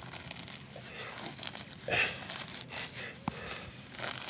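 Grass and weeds being torn and pulled up by hand, a run of irregular rustles and rips, with a man's heavy breathing from the effort.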